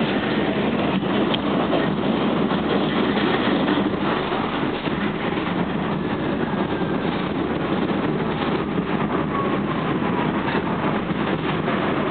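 New York City subway train running on the rails, a steady rumble with many small clicks and rattles. In the second half a thin whine falls steadily in pitch, as the train slows.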